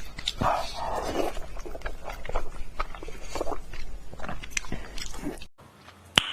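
Close-miked eating sounds: a person chewing a large mouthful of pork belly, with wet smacks and small crunches in quick irregular succession. Near the end the sound cuts away, and a single sharp click follows.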